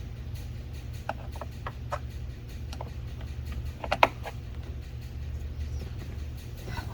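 Small plastic clicks and snaps from working the door's trim clips and wiring connectors loose, scattered through the first three seconds, with one louder snap about four seconds in. A steady low hum runs underneath.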